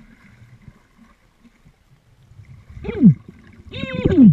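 Muffled underwater ambience of a river, a low quiet rumble, heard through a submerged camera. Near the end come two short pitched sounds that glide down in pitch, the second louder and carrying several overtones.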